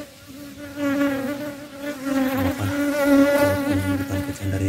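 Asian honey bees (Apis cerana) buzzing around a swarm cluster, the hum swelling and wavering in pitch as bees fly close past; louder from about a second in. The colony is restless, its bees flying about in search of their queen.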